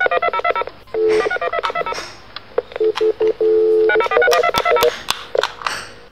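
Spider-Man toy walkie-talkie playing electronic sound effects: rapid runs of stepped beeps like phone dialling tones, in several bursts with short gaps. A few sharp clicks come near the end.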